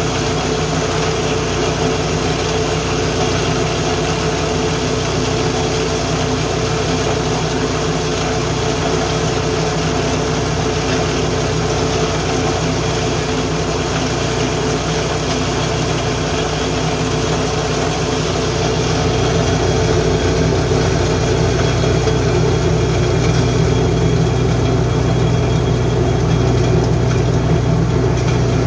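Richi KD 350 grain mill running steadily, driven by its 7 HP petrol engine while cracking dry corn. The drone grows slightly louder about two-thirds of the way in.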